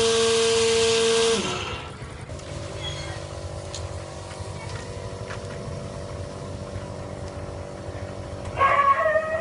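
Small electric motor of a solar-powered sprayer and grass-cutter cart whining steadily, then switched off about a second and a half in and winding down. About a second later a quieter, steady motor hum starts and runs on, and a brief louder sound with wavering pitch comes near the end.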